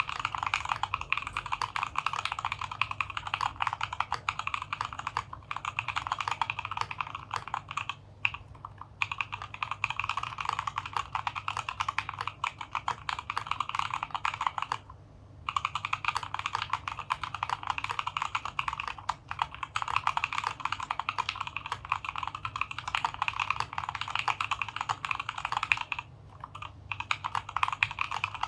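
Continuous fast typing on a DZ60 60% mechanical keyboard in a wooden case, with Gateron Milky Black linear switches, XDA keycaps, foam and a tape mod: a dense run of keystroke clacks. It pauses briefly about eight, fifteen and twenty-six seconds in.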